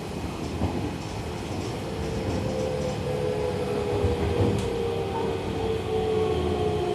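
Seibu 30000 series electric train running, heard on board: a steady rumble of wheels on the track, with a traction motor whine that comes in about two seconds in.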